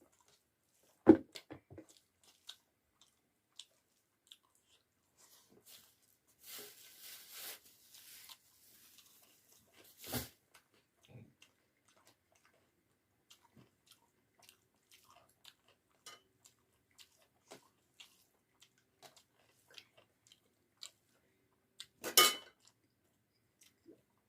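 Close-miked eating: scattered small wet clicks of chewing and mouth sounds, with a loud sharp knock about a second in, another about ten seconds in and a third near the end, and a soft rustle between about six and eight seconds in.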